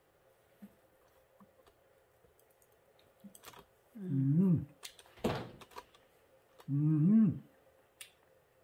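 Faint clicks of cooked green mussel shells being handled, then two low hummed 'mmm' sounds from a man eating, about four and seven seconds in, with a short sharp noise between them.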